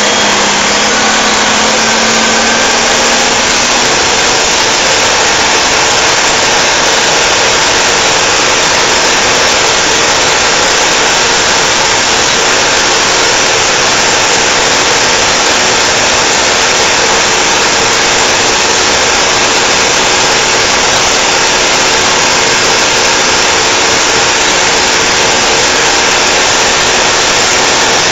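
Mercedes-Benz 911 truck's diesel engine running steadily under way, a loud, even engine and road noise without a break.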